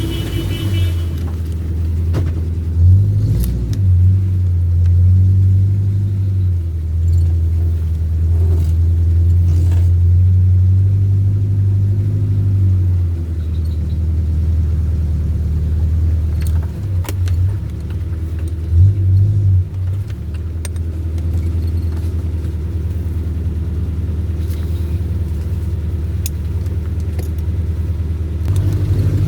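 Off-road vehicle's engine running under load on a rough track, a low drone that eases off and picks up again several times, with a few sharp knocks and rattles along the way.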